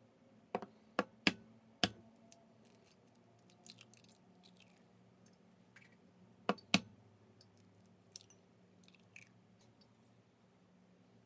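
Eggs being cracked open by tapping the shells: four sharp taps in the first two seconds, then two more about six and a half seconds in for the second egg, with faint small clicks in between.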